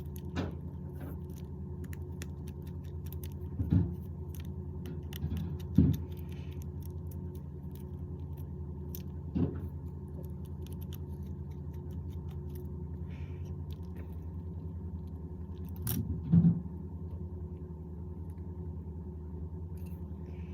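Small metallic clicks and taps from precision screwdrivers and tiny phone screws being handled, a handful spread out over several seconds. Under them runs a steady low electrical hum.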